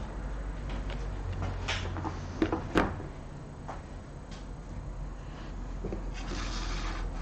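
A few sharp knocks and clicks of parts being set down on a wooden board, over a steady low hum. A short rustle comes near the end as a card of wire is placed.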